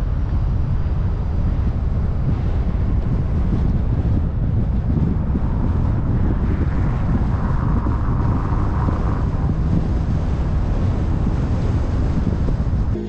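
Steady noise of a car driving on the road: a low rumble of tyres and road with wind buffeting the microphone.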